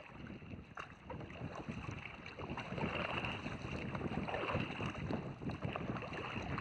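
Kayak paddle strokes dipping and splashing in calm canal water, with water dripping off the paddle blades. Wind noise on the microphone sits under the splashing.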